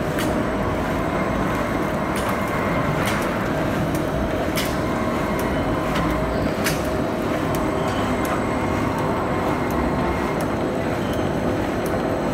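Horizontal orbital stretch wrapper running, its ring turning around a long package as the conveyor feeds it through: a steady mechanical hum with a few scattered sharp clicks.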